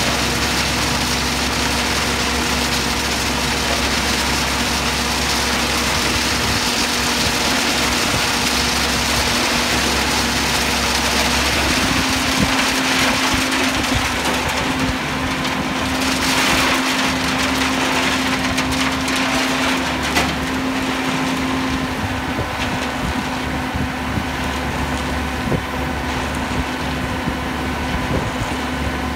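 Diesel engine of a Schwing Stetter SLM 4000 self-loading concrete mixer running steadily while its loading bucket is worked. The engine note steps slightly higher about twelve seconds in.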